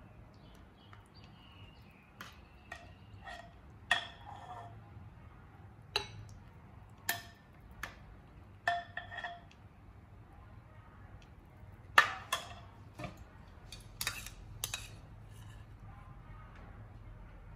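Stainless ladle clinking against a ceramic bowl as sweet potato pieces in syrup are ladled in: a dozen or so scattered clinks, some ringing briefly, the loudest about twelve seconds in, over a faint low hum.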